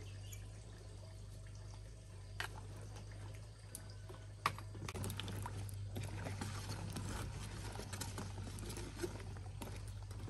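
Small white Thai eggplants being cut with a knife and dropped into a bowl of water: scattered light knife clicks and small splashes, more frequent about halfway through. A steady low hum lies underneath.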